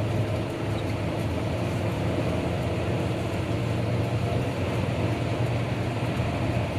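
Steady drone of a car driving, heard from inside the cabin: engine and tyre noise on a snowy, icy road.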